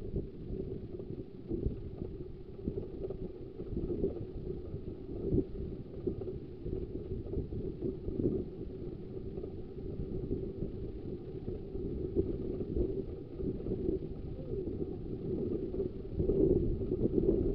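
Low, steady rumble of a 15-inch gauge railway carriage running along the track, with many small irregular knocks. It grows a little louder about a second before the end.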